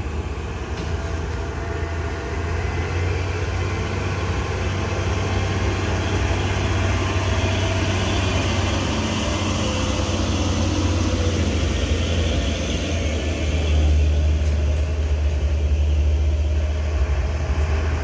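Several heavy diesel trucks, Mitsubishi Fuso dump trucks and a tanker, working uphill with a steady deep engine drone, louder for a few seconds near the end as one draws close.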